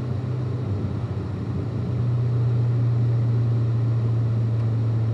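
Corvette's V8 engine droning steadily at a cruise over road noise, heard from inside the car; the note eases slightly about a second in, then holds.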